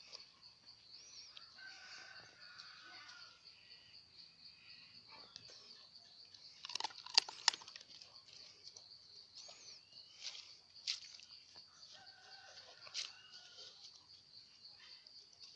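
A rooster crowing twice, long drawn-out calls near the start and again near the end, over a steady high-pitched hum. A short cluster of sharp knocks comes about seven seconds in.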